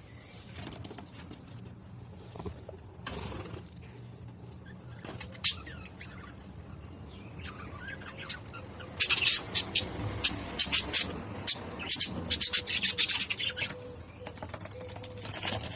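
Young budgerigar making a quick run of sharp, high chirps and clicks, about nine seconds in, lasting some five seconds, with another burst near the end; before that only a few soft, scattered sounds.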